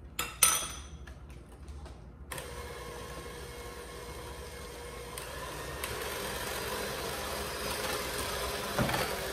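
A sharp knock and a few clicks near the start, then an electric hand mixer switches on about two seconds in and runs steadily, beating an egg, sugar and cornstarch custard base in a glass bowl. It gets a little louder about six seconds in.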